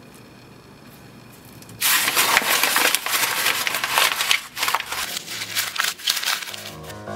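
A sheet of paper being crumpled up by hand: loud crackling and crunching that starts suddenly about two seconds in and goes on for several seconds. Music comes in near the end.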